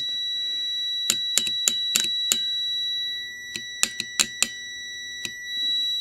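A digital multimeter's continuity beeper sounds one steady high-pitched tone while it reads continuity across a contactor's contacts with the coil unenergized, a sign that the contacts are stuck closed. Sharp clicks sound over it, a run of five about a second in and another few around four seconds in, and the tone gets quieter around the midpoint.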